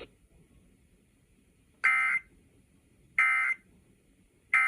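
Emergency Alert System end-of-message data tones: three short, identical bursts of warbling digital data, a bit over a second apart, marking the end of the alert.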